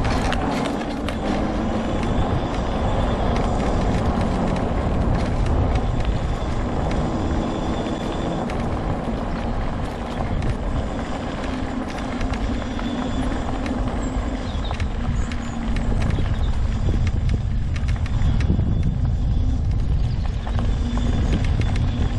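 Homemade all-wheel-drive mobility scooter driving along a trail: a steady motor hum over a continuous low rumble.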